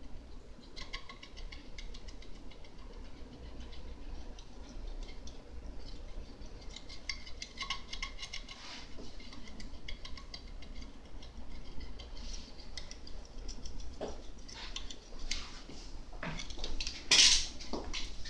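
Prusa i3 RepRap 3D printer running a print: its stepper motors move the print head in short, rapid steps, making a dense patter of ticks with brief whining tones. A louder rustling noise comes about a second before the end.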